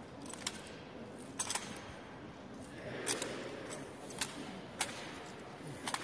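Sharp, isolated clacks of a ceremonial rifle drill with M1 Garand rifles, about seven in all with a quick double about a second and a half in, over a faint murmur of onlookers.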